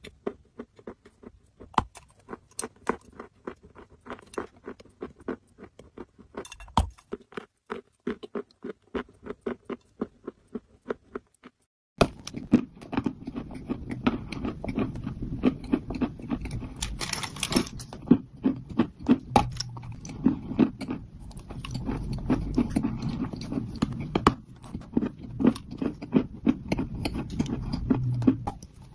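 Dry orange clay crunching as chunks are bitten off and chewed, a dense run of sharp, brittle crunches. About 12 seconds in, the crunching gets louder over a steady low rumble and hiss.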